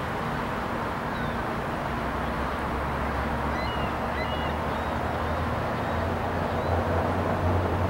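Steady low rumble of distant engines, growing a little louder in the second half, with a few faint, short high chirps about halfway through.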